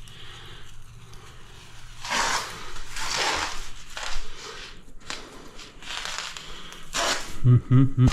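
A series of short scraping and rubbing noises, five or six of them about a second apart, from hand work on the job; a voice starts just before the end.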